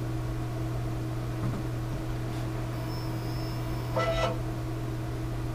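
Steady low hum of a Kudo3D Titan 1 DLP resin 3D printer running mid-print, with a short brief sound about four seconds in.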